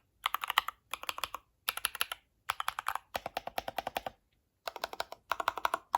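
HITIME XVX 60% mechanical keyboard being typed on in quick runs of rapid keystrokes with short pauses between them; the keys sound pretty clicky.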